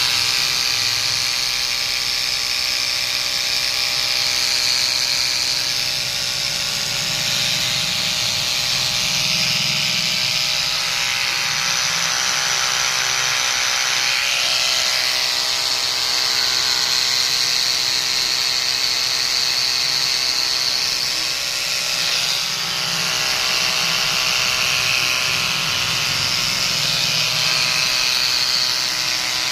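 Electric animal hair clipper running steadily, a small motor's continuous buzz with no break.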